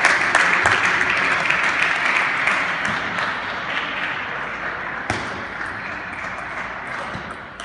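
Spectators' applause and crowd noise dying away, then a table tennis ball being hit and bouncing in a few sharp clicks near the end.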